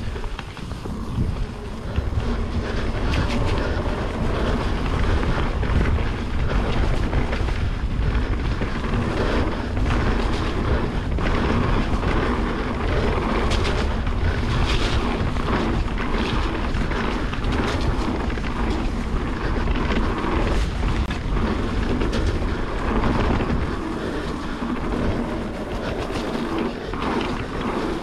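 Mountain bike riding down a dirt trail: steady wind rumble on the microphone and tyre noise, with frequent short knocks and rattles over rough ground.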